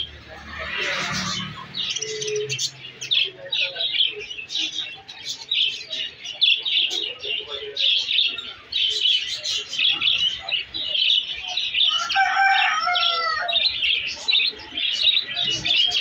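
Dense, continuous chirping and twittering of caged birds, with one longer, lower call lasting about a second and a half about twelve seconds in.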